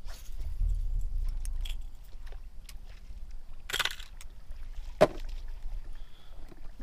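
Fishing gear being handled on a boat deck: scattered small clicks and rattles, a short clatter just before four seconds in and a sharp knock about five seconds in, over a low rumble of wind on the microphone.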